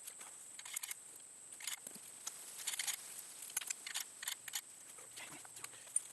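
Faint, irregular small metallic clicks and clinks, in little clusters every second or so, of .41 Magnum cartridges being handled and loaded into a Henry Big Boy Steel lever-action rifle's tube magazine.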